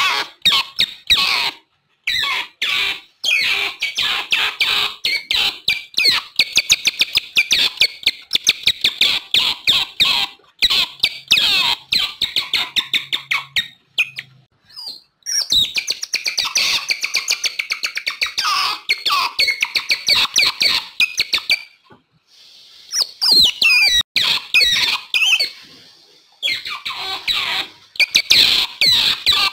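Otters chirping and squeaking: dense runs of short, high-pitched calls, broken by brief pauses about halfway through and again about three-quarters of the way through.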